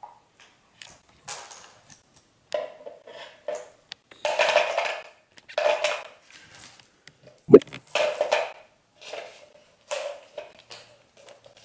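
A string of plastic beads rattling and clattering on a wooden floor in short, irregular bursts as a cat bats, drags and mouths it, with one sharp knock about two-thirds of the way through.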